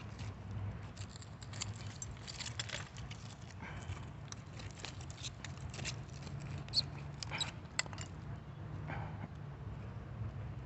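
Digging by hand in a bottle dump: scattered scrapes in the soil and clinks of glass shards. A steady low rumble runs underneath, with two sharper clinks in the second half.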